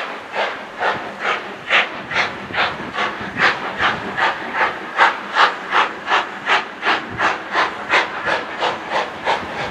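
Steam locomotive working hard under steam, its exhaust chuffing in a regular beat that quickens from about two and a half to about three beats a second.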